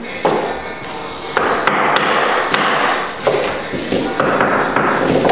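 A hammer knocking 2¼-inch tongue-and-groove oak flooring strips into place: a series of sharp wooden knocks at irregular intervals, about seven or eight in all.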